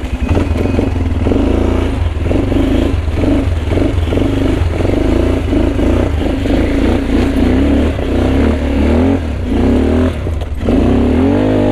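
ATV engine under way on rough ground, revving up and down in short surges as the throttle is worked, its pitch gliding upward near the end, over a steady low rumble.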